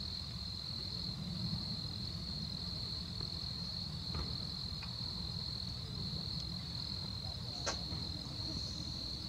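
Crickets trilling in a steady, unbroken high-pitched chorus over a low background rumble, with a few faint clicks, the sharpest about three quarters of the way through.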